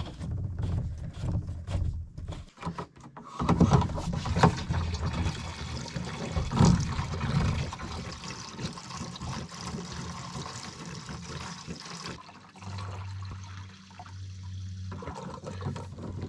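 Liquid pouring out of a jerry can into a tank as the can is emptied.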